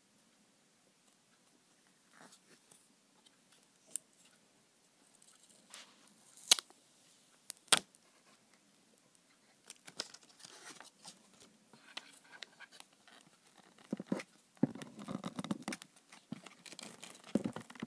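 Hands working an iPod Touch loose from its clear plastic packaging tray. First a few scattered sharp plastic clicks and taps, then denser rustling and scraping in the last few seconds.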